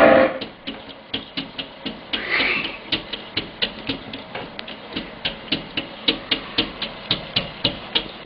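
An even series of sharp clicks or knocks, about three or four a second, with a brief rising sound about two seconds in.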